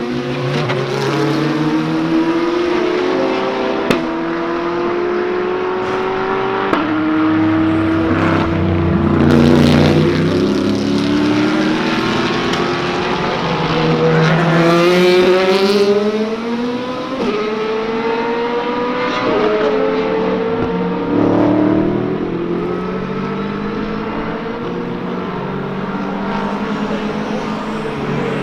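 Several endurance race cars running on the circuit, their engines climbing in pitch and dropping back at each upshift, with louder cars passing close about nine seconds in and again around fifteen seconds.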